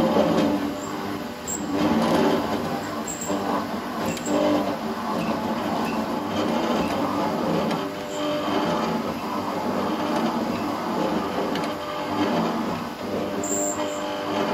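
Felder FD250 slot mortiser's spinning cutter cutting a slot into the end grain of a board, worked side to side like a saw. The cutting noise swells and eases every couple of seconds as the bit is swept back and forth.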